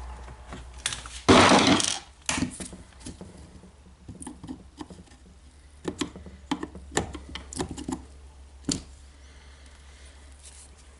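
Metal parts and hand tools handled on a workbench during a power-tool teardown: a loud brief clatter about a second in, then a string of sharp clicks and knocks, the last of them near the end.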